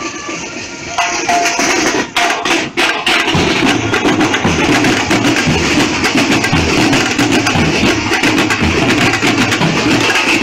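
Marching band drum line playing snare and bass drums. A few sharp clicks come about two seconds in, then deep bass drum strokes join about three seconds in and the drumming goes on in a steady, loud beat.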